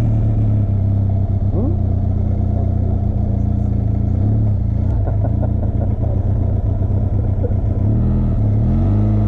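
Benelli TRK 502 X's parallel-twin engine running steadily at low revs, with its pitch rising and falling briefly near the end as the rider feeds in the clutch to pull away uphill on a fully loaded bike.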